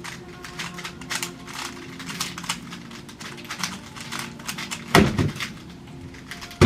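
Plastic 3x3 speed cube being turned fast, a quick run of clicking layer turns during a timed solve, then a single loud thud about five seconds in.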